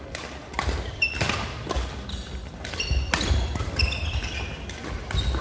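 Court shoes squeaking on a wooden sports hall floor, in several short squeaks around a second in and again around three to four seconds in, among scattered footfalls and sharp knocks.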